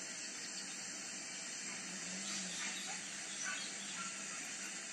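Forest background: a steady high hiss with a few faint, short bird-like chirps scattered through it. The elephant makes no call.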